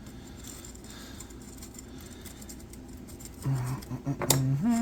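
Faint small ticks and taps of hand tools and parts being handled during a chainsaw teardown. Near the end come a brief wordless vocal hum and one sharp click.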